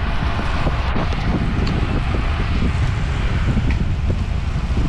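Steady wind buffeting a bike-mounted camera's microphone while riding a road bike at speed, heard as a dense low rumble.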